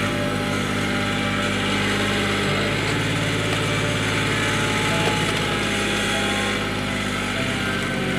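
Tractor engine running steadily, its pitch shifting slightly a few times as it works.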